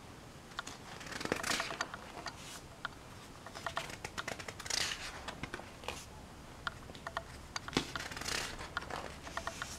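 Pages of an old magazine being turned and handled: soft paper swishes, three or four of them, with small crackling clicks in between.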